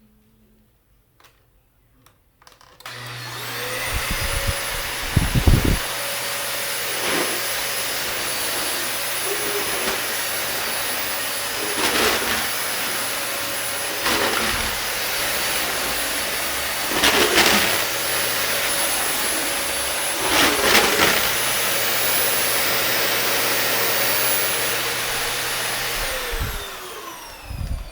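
Dyson DC26 vacuum cleaner with its carbon-fibre motorized brush head switched on about three seconds in. It runs with a steady hum and a high whine, with a very loud abnormal noise from the brush head and a few louder surges. Near the end it is switched off and the motor winds down in falling pitch.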